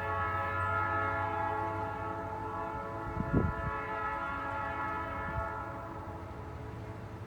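Diesel freight locomotive's air horn sounding one long held chord, fading out around five to six seconds in, over the steady low rumble of the locomotive engines. A brief low thump comes a little over three seconds in.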